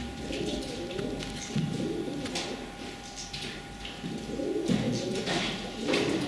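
Pigeons cooing, a run of low repeated coos.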